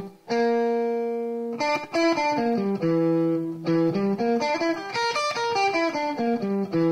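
Electric guitar playing an E minor 7 flat 5 arpeggio, one note at a time. It opens on a held pair of notes, then runs quickly up and down through the notes of the arpeggio and ends on a held note.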